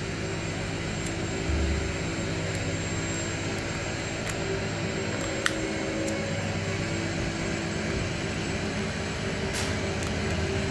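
Handheld butane mini torch burning with a steady roar, its flame heating seized brake line fittings at the ABS unit to loosen them, with a few sharp clicks along the way.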